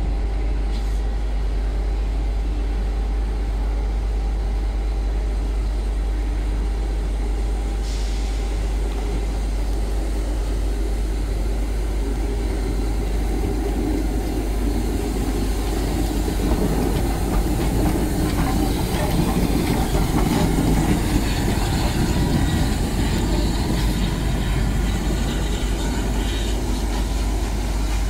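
Rebuilt Merchant Navy class steam locomotive 35018 rolling slowly past, its wheels, motion and tender rumbling over the track, getting louder as it goes by in the middle of the passage and easing off as it moves away.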